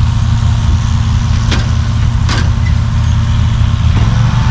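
A steady low engine rumble, with two sharp clicks about one and a half and two and a half seconds in.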